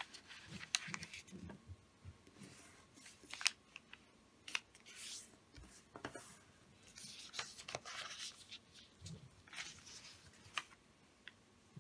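A sheet of origami paper being folded in half and creased by hand: faint rustling and sliding of the paper, with scattered sharp crinkles and taps as the folds are pressed flat.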